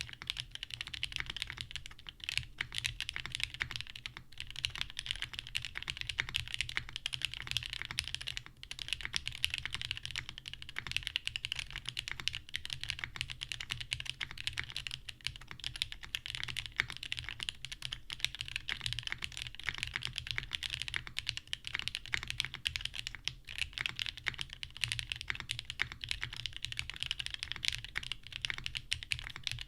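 Continuous fast typing on a plateless, PCB-mounted daji Seis Cero custom mechanical keyboard. It has lubed and filmed Cherry-top JWK Jwick linear switches and GMK keycaps, giving a dense stream of keystroke clicks and clacks. A brief lull comes about eight and a half seconds in.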